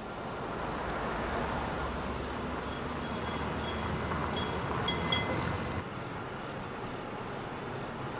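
An old electric streetcar running on its rails in a steady rumble, with a few quick metallic dings about three to five seconds in. The low rumble drops off suddenly about six seconds in as the car comes to a stop.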